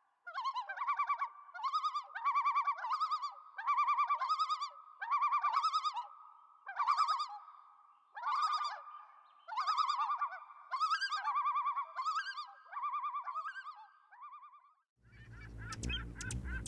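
A bird calling over and over, about once a second, each call a wavering, warbling tone with many overtones. Music starts near the end.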